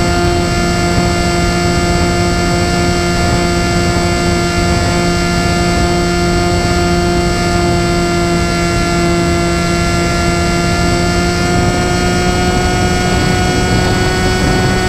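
Electric motor and propeller of an FPV flying wing, recorded onboard: a loud, steady whine with a fixed pitch over rushing wind. The pitch edges up slightly about two-thirds of the way through.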